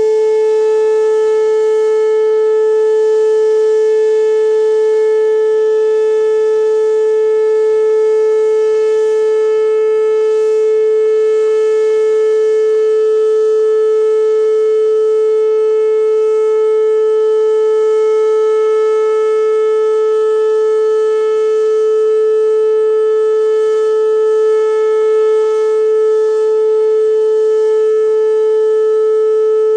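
Whelen WPS-2809 electronic outdoor warning siren sounding one steady, unwavering tone during its routine monthly test, with no rise or fall in pitch.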